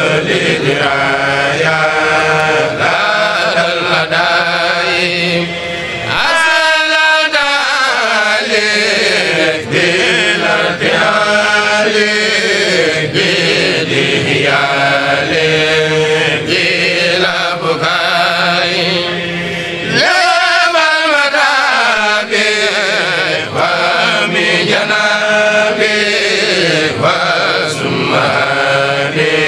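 A Senegalese Mouride kourel chanting an Arabic khassida together, the voices moving in long rising and falling phrases. The chant breaks briefly about six seconds in and again about twenty seconds in, then goes on.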